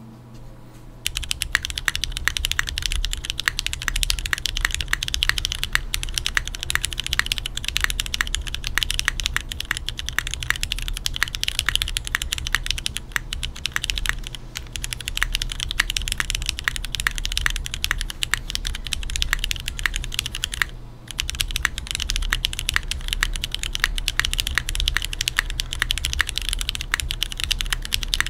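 Continuous fast typing on a custom mechanical keyboard with linear Cherry MX Black switches in an aluminium plate on a hotswap PCB, with GMK doubleshot keycaps: a dense stream of key clacks that starts about a second in and pauses briefly once, about three quarters of the way through.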